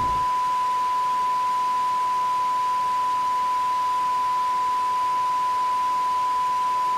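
Steady electronic test tone: one pure pitch held unchanged at a constant level, cutting off abruptly at the end.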